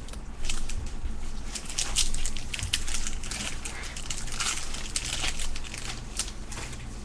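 Crinkling and rustling of trading-card packaging and cards being handled: a run of short, irregular crackles.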